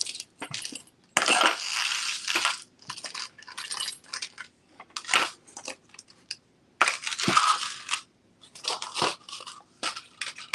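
Irregular rustling and light clicking of costume jewelry being handled, put away and picked up on a table. There are two longer rustles, one about a second in and one around seven seconds.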